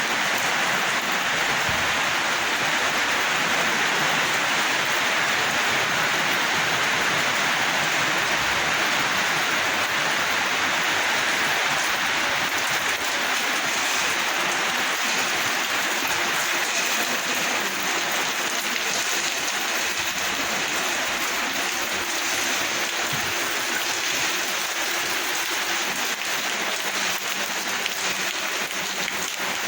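Rain falling steadily on surfaces, a dense even hiss that eases slightly near the end.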